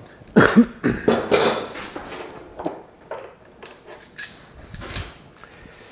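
Shop handling noise: a series of separate knocks and metallic clatter as a clamp is taken off a wooden table frame and the frame is shifted on the workbench. The knocks are loudest and most frequent in the first second and a half, then come more sparsely.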